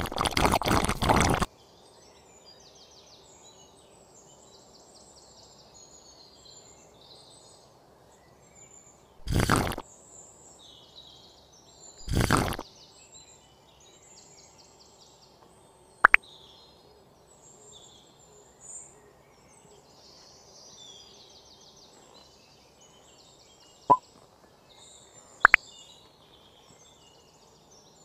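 Small hand-work noises on a workbench: a few short bursts of noise, then three sharp clicks in the second half. Faint bird chirps run underneath.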